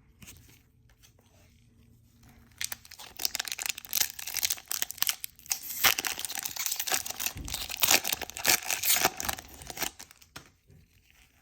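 A foil Pokémon booster pack wrapper being torn open and crinkled by hand, a run of crackling rips starting a couple of seconds in and dying away near the end.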